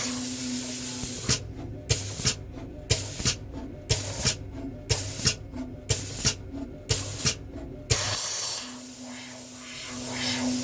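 Conformal coating machine's spray nozzle hissing. A steady spray gives way after about a second to a rapid run of short spray pulses, about two a second, and turns steady again near the end.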